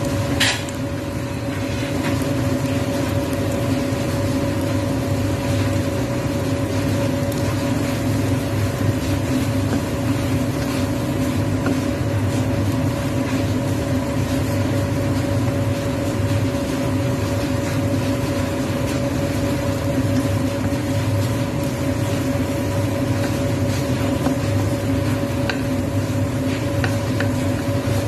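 A steady machine hum with several fixed tones runs throughout, under faint scrapes of a wooden spatula stirring squid in a wok. A short sharp click comes near the start.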